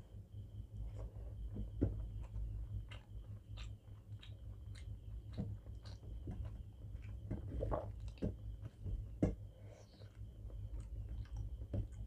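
A person chewing mouthfuls of rice and egg curry, with irregular wet clicks and smacks, while fingers mix rice and curry on a steel plate. A steady low hum runs underneath.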